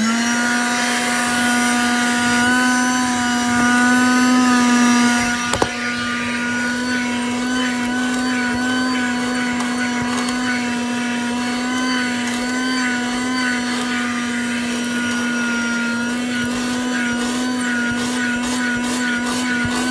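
Sakura 12 V 120 W wet-and-dry car vacuum cleaner switched on, its motor spinning up quickly to a steady hum with a rush of air. A click about five and a half seconds in, after which it runs slightly quieter, and a few short ticks near the end.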